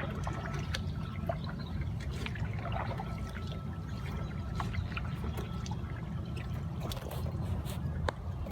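Kayak paddling: water trickling and dripping off the paddle blades in scattered small splashes, over a steady low rumble.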